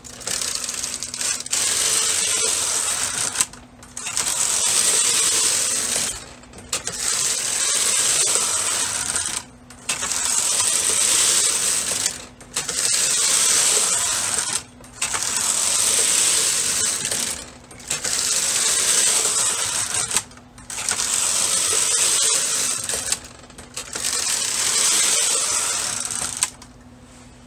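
Carriage of a Brother KH-260 bulky knitting machine pushed back and forth across the metal needle bed, knitting nine rows of Fairisle pattern. Each pass is a steady clatter of about two and a half seconds, with a brief pause at each end before the carriage goes back the other way.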